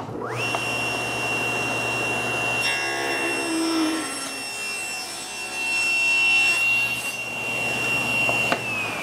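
SawStop table saw switched on, its blade whining up to speed and then running steadily. From about three seconds in it cuts through a wooden board for some three seconds, then runs free again. Near the end it is switched off with a click, and the whine begins to fall as the blade winds down.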